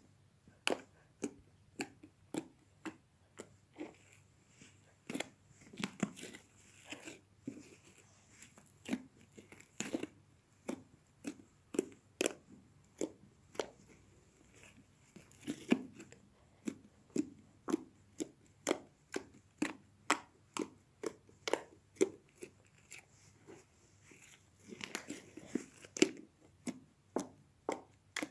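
Slime being squeezed and stretched by hand, giving a steady run of sticky pops and clicks, roughly one or two a second, with denser crackling spells.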